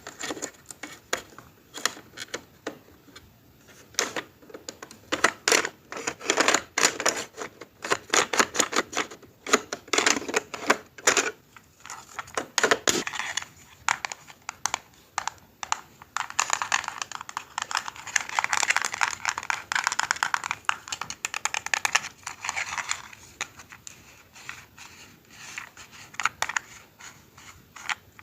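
Irregular clicks and taps of small hard objects in quick succession, with a denser stretch of fast, continuous clicking in the second half.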